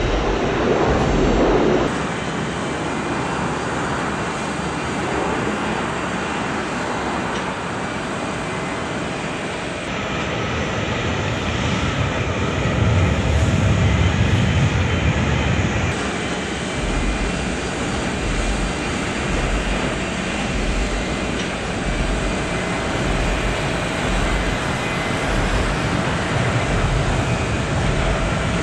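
Steady airport aircraft engine noise, with faint whining tones over it; a deeper rumble swells about halfway through, then settles.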